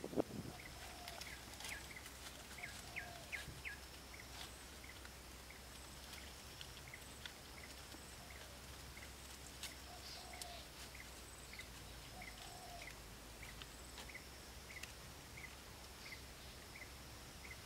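Faint outdoor ambience: a bird repeating short, high chirps over and over, against a steady high insect drone.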